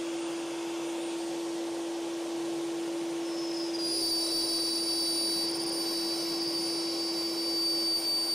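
Triton plunge router running in a router table, routing a test groove in a drawer side. A high whine joins about four seconds in, with a slight rise in level.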